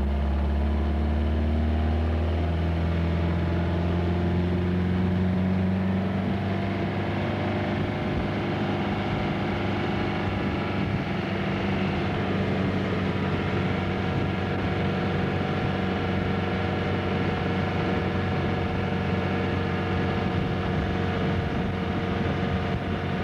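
Speedboat engine running hard, rising a little in pitch over the first few seconds and then holding a steady drone while towing a water skier.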